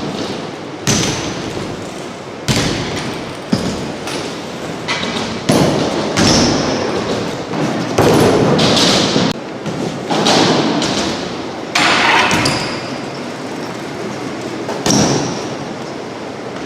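BMX bikes being ridden through tricks: a thud every second or two from landings and impacts, each followed by a stretch of rolling or scraping noise.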